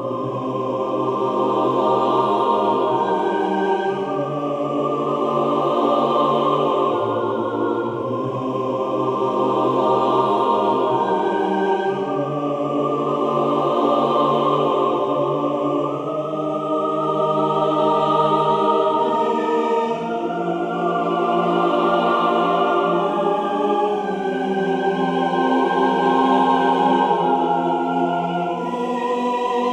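Slow choral music: voices hold long sustained chords that swell and change about every four seconds.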